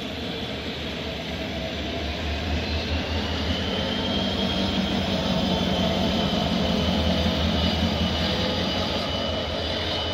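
CFR LDE diesel-electric locomotive passing at low speed, its diesel engine running with a steady low drone under a high whine. The sound grows louder as the locomotive comes level, about two-thirds of the way through, then eases slightly.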